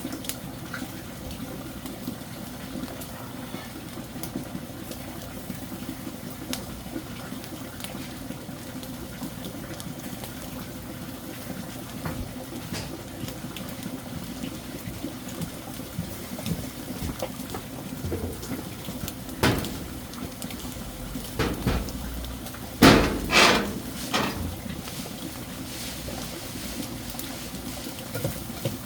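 Steady running water, likely the stream. A few loud, sudden knocks or bumps come about two-thirds of the way through.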